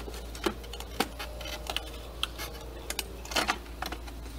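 Scattered light plastic clicks and taps from the blue side cover and drive belt of a Dolphin Nautilus robotic pool cleaner being worked loose by hand.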